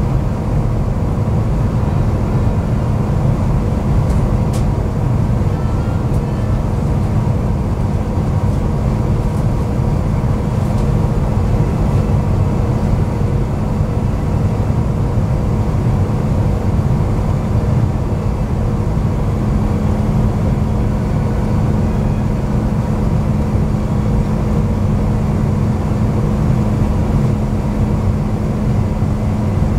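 Steady cabin noise of an Airbus A350-900 airliner descending on approach: an even, low rumble of airflow and engines with a faint steady hum, unchanging throughout.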